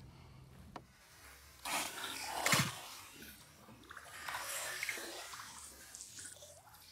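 Largemouth bass released back into the water over the side of the boat: a loud splash about two seconds in, then softer splashing a couple of seconds later as the water settles.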